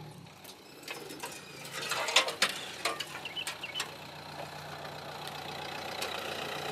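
Renault Duster 1.5 dCi diesel engine running steadily at low revs as the SUV crawls up a sandy slope, with scattered clicks and crunches in the middle. The engine is held back because the ESP is cutting the throttle.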